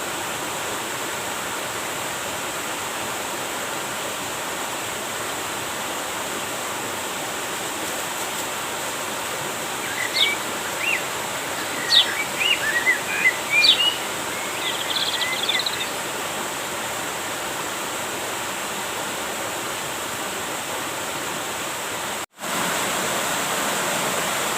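Steady rush of flowing river water, with a bird giving a string of short chirps a little under halfway through. Near the end the sound drops out for an instant and comes back slightly louder.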